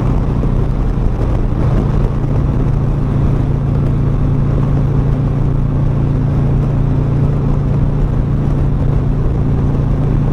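Harley-Davidson V-twin motorcycle engine running steadily under way, with wind rushing past the microphone. The engine note firms up slightly about a second and a half in.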